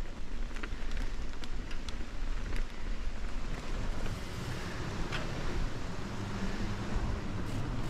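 Mountain e-bike rolling downhill on a wet dirt trail: tyre and rolling noise with wind buffeting the microphone, and sharp rattles and clicks from the bike over bumps. It moves onto a bridge deck about halfway through, with a deeper rumble near the end.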